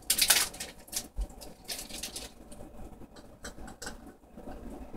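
Fingers scratching and prying at the sealed lid of a small candy tin: short rustling swishes in the first two seconds, then scattered small clicks and scrapes.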